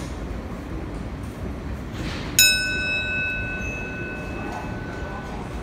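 Steady low rumble of an R160 subway train standing at the platform. About two and a half seconds in, a single bell-like chime sounds once and rings out over about three seconds: the train's door chime, the signal that the doors are about to close.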